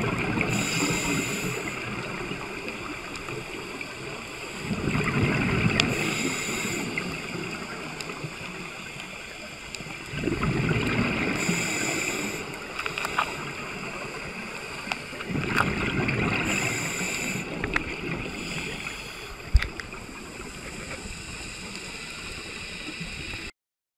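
Scuba diver breathing through a regulator underwater: a breath about every five seconds, each a hiss followed by a rush of exhaled bubbles, with a few sharp clicks between. The sound cuts off abruptly near the end.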